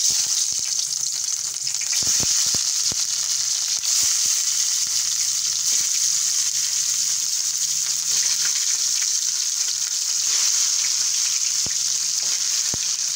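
Mince-stuffed bitter gourds (karela) sizzling as they go into hot oil in a steel frying pan: a steady, loud hiss with scattered pops and crackles.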